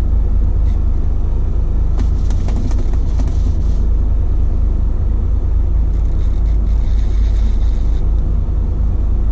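Fishing boat's engine running steadily: a loud, even, low rumble.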